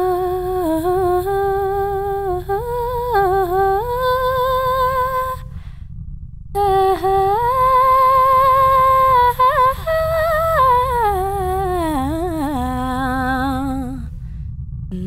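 Wordless humming of a slow melody by a single voice, in long held notes that glide and waver between pitches, with a brief pause about five and a half seconds in, over a steady low background hum.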